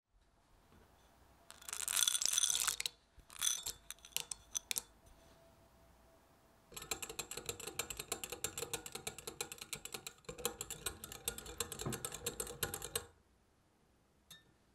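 Wire whisk stirring a liquid mixture in a glass Pyrex measuring cup, its wires ticking and scraping against the glass at about five strokes a second for roughly six seconds from about seven seconds in. Before that comes a loud short burst of clatter about two seconds in, then a few clicks.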